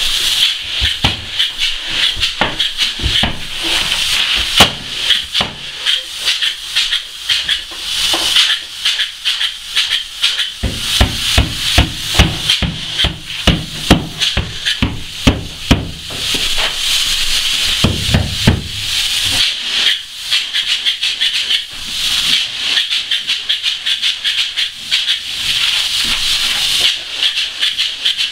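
Spray foam gun hissing as it sprays closed-cell polyurethane foam, in long spells with a few short breaks, over frequent knocks and rattles.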